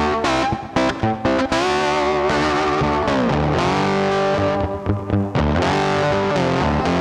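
Background music: distorted electric guitar playing sustained, bending notes with bass.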